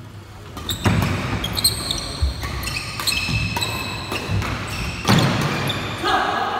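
Badminton doubles rally on a wooden indoor court: rackets striking the shuttlecock in sharp cracks, starting just under a second in, with sports shoes squeaking and feet thudding on the floor between shots.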